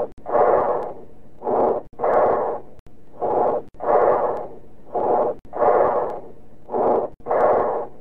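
Bronchial breath sounds, about four breaths: each a short blowing inspiration, a brief pause, then a longer, louder, harsh expiration. This is the breathing heard over consolidated lung.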